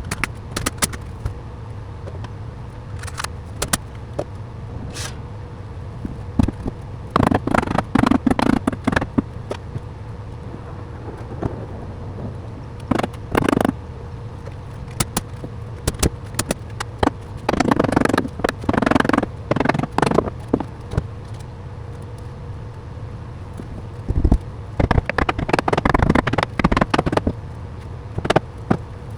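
Carpentry work noise: four spells of rapid knocking and scraping, each lasting a second or two, with scattered single clicks in between, over a steady low hum.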